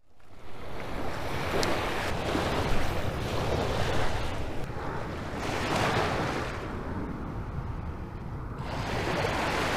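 Small surf waves washing onto the beach, with wind buffeting the microphone; the wash swells up about four and six seconds in.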